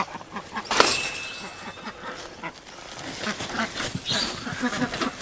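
Ducks quacking inside a wire-mesh coop as it is moved on a hand trolley, with clanks and rattles from the trolley and mesh frame; a loud knock about a second in.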